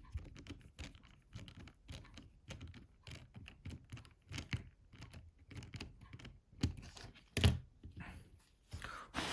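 Small irregular clicks and taps of a precision screwdriver and plastic phone parts, as screws are driven into a Nokia 5220 XpressMusic's housing, with a couple of louder knocks about seven seconds in.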